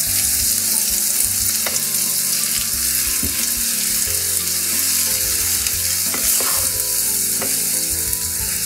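Baby spinach and asparagus sizzling in olive oil in a frying pan, stirred with a wooden spatula, with a few light knocks of the spatula against the pan.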